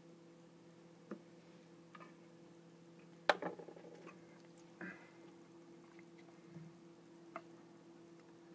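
Small clicks and taps of a metal lighter being handled, with one sharper metallic click about three seconds in followed by a brief rattle, over a steady low hum.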